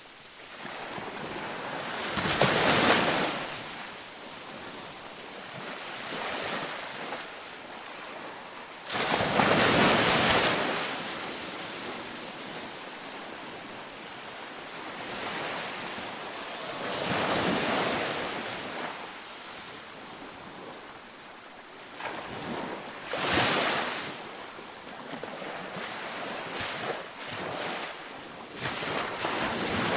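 Ocean waves breaking on a beach, one about every six to eight seconds, each rising and falling away, with a steady wash of surf between them. The loudest break comes about nine seconds in.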